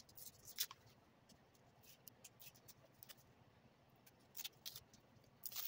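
Faint scattered scratches and light taps from foam-board parts being handled and marked with a pen, a little louder about half a second in and again near the end.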